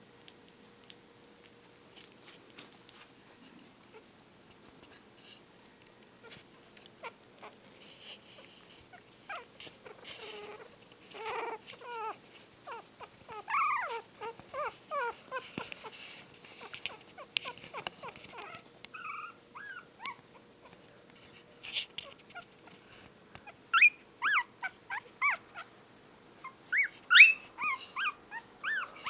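Young Tibetan terrier puppies whimpering in short, high, squeaky calls. The calls start about a third of the way in, come in clusters, and are most frequent near the end.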